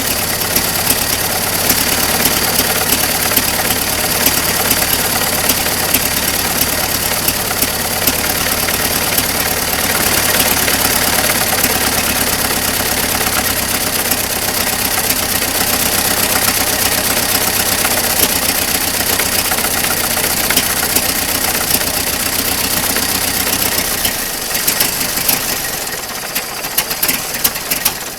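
Ford Model T's four-cylinder side-valve engine running at idle on its first start after sitting over 25 years. Near the end it gets quieter and runs unevenly, firing in separate pops.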